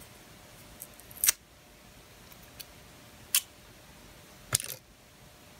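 Three sharp clicks from small tools and parts being handled on a workbench, about a second or two apart. The last click is followed by a brief rattle.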